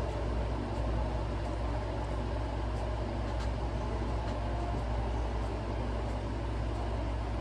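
Steady low background hum or rumble, even throughout, with no speech.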